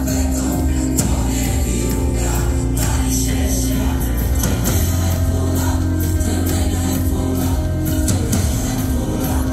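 Live band music with singing and a choir over a strong, steady bass.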